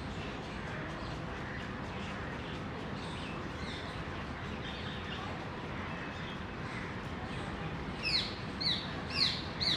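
Steady outdoor background noise with faint bird chirps. Near the end comes a quick run of four or five loud, sharp bird calls, each falling in pitch.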